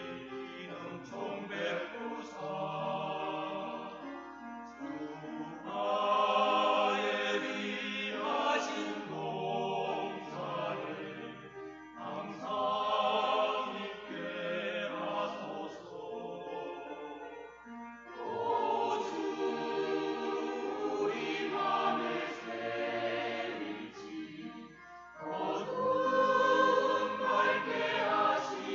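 Church choir singing a hymn in parts, its phrases swelling louder several times and then easing off.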